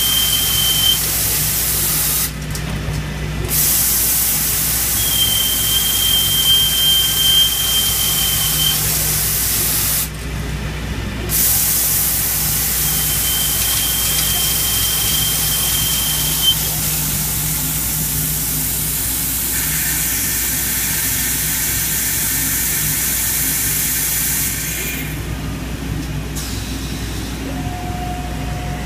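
Kinetic K5000 CNC drilling machine drilling a 1-inch blind hole into 2-inch-thick steel plate: a steady loud hiss over a low hum, with a thin high whine that comes and goes. The hiss drops out briefly about three times.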